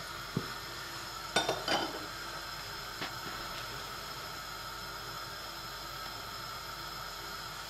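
Khvorost dough deep-frying in hot oil in a pot, with a steady sizzle. A metal utensil clinks against the pot and plate a few times in the first three seconds as the fried pieces are lifted out.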